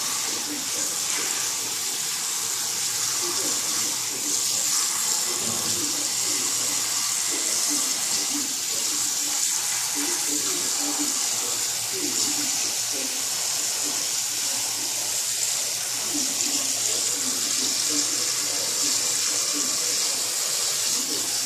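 Tap water pouring steadily into a basin of kangkong (water spinach), splashing over the leaves as they are rinsed by hand.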